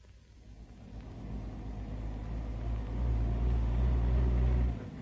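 WWII jeep engine running as the vehicle drives up, a low rumble that grows louder over the first few seconds and then drops off sharply near the end.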